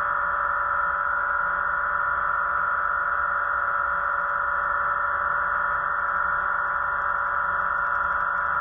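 A steady, unchanging hum with no breaks or changes in pitch. Faint high ticking creeps in from about halfway through.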